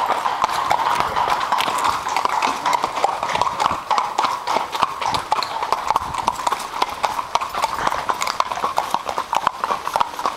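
Horses' hooves clip-clopping at a walk on a wet paved lane, a continuous irregular patter of hoof strikes.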